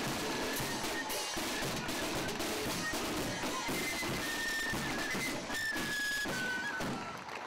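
Military marching band music: drums beating steadily under a high melody of held notes that step up and down in pitch.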